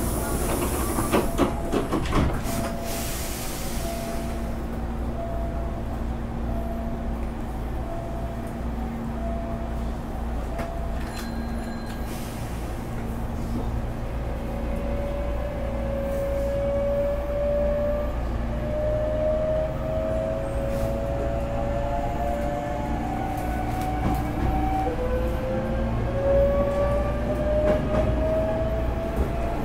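Hankyu 8300 series electric train running, with its Toyo GTO-VVVF inverter and traction motors whining in a pitch that rises as the train gathers speed. The whine drops back and climbs again about two thirds of the way through, over a steady hum from the running air conditioning. Bursts of hiss come near the start.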